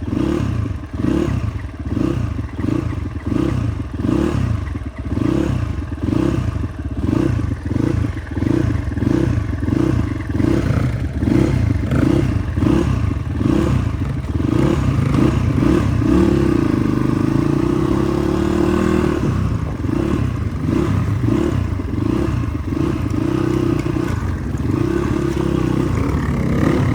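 Motorcycle engine running on a rough track, its sound rising and falling about twice a second, with rattles over the bumps; it holds steadier for a few seconds about two-thirds of the way through.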